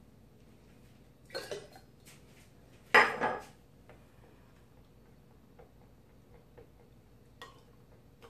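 Kitchen dishes and utensils clattering: a short rattle, then one sharp ringing clink about three seconds in, followed by a few light taps.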